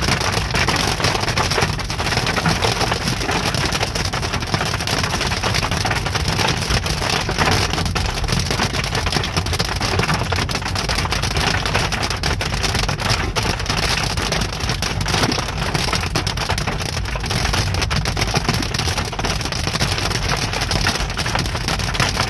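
Hail and heavy rain drumming on a car's roof and windshield, heard from inside the cabin of the moving car: a dense, steady clatter of countless impacts over the low rumble of the car on a wet road.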